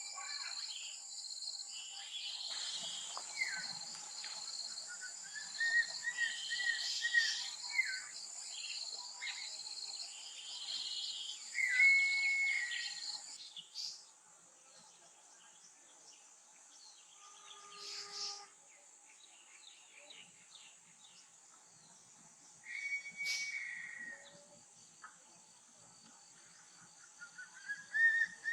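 Wild birds calling in forest: clear whistled notes, including a short rising phrase heard twice. Under them runs a steady high insect drone that drops away about halfway through.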